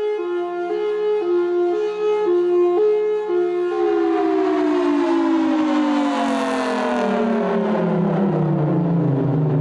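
A siren-like two-tone sound, flipping between a higher and a lower pitch about twice a second, then about four seconds in changing to one tone that slides slowly down in pitch.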